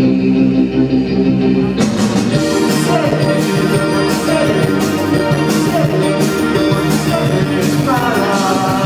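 Live band playing loud synth-driven rock: a held keyboard chord, then about two seconds in the drums with cymbals and the guitar come in and the full band plays on.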